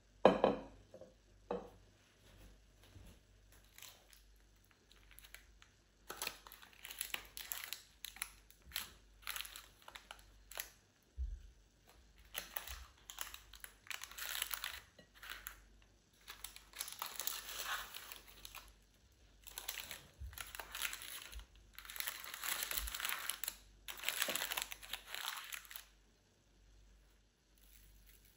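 A single knock, then a long run of crinkling and rustling in repeated bursts of a second or two, as of material being handled and crumpled.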